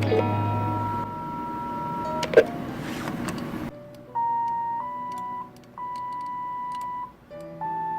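Phone keypad button tones imitated and played through a computer speaker to dial a phone. First a two-note beep is held for about two seconds, followed by a click. Then comes a series of separate beeps, each about a second long, at slightly different pitches.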